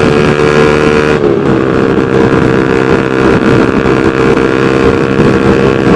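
Honda New CB150R's single-cylinder engine running through a 3Tech Spartan GP aftermarket racing exhaust while riding, loud and steady, its pitch dropping slightly about a second in before holding steady again.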